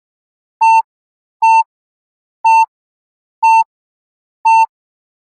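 Five short identical electronic beeps about once a second from a Yo-Yo test app, the timing signal that marks the end of a shuttle run.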